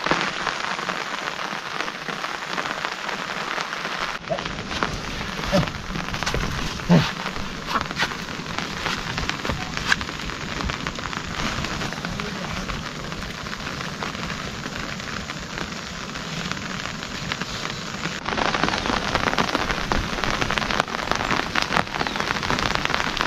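Steady rain falling, with a scatter of individual drops striking close by; it turns louder for the last few seconds.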